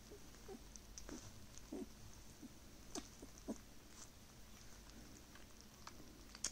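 A puppy licking and smacking its lips: scattered soft, wet mouth clicks and smacks, a few at a time.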